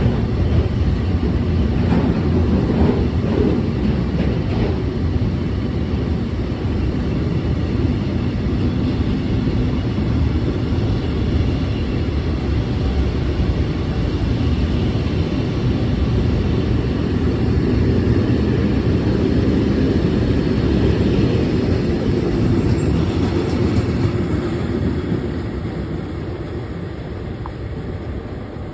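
Train passing with a steady loud rumble, fading away over the last few seconds.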